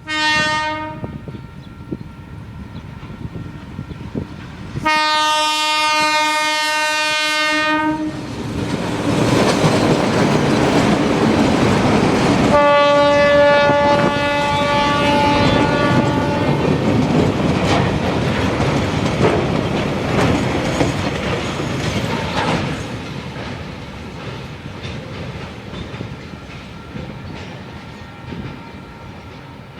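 Two Z-class diesel locomotives sound their horn three times: a short blast, then two long ones, the last on a higher chord. Underneath is the loud rumble of the train going by, which fades as the wagons clatter over the rail joints.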